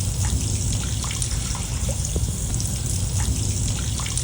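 Water trickling and bubbling steadily, with many small rising plops of bubbles throughout.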